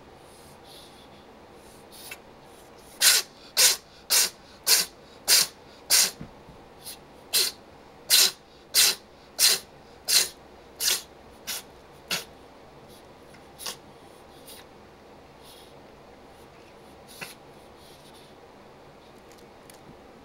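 A house cat sneezing in a rapid fit, about fourteen sharp sneezes in quick succession, roughly one every half second, then a few weaker, scattered ones. The owner puts the fit down to a booger in its nose.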